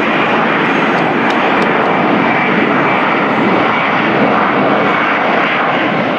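Jet engines of an Airbus A321-200 running loud and steady as the airliner rolls along the runway, with a faint high whine over the noise.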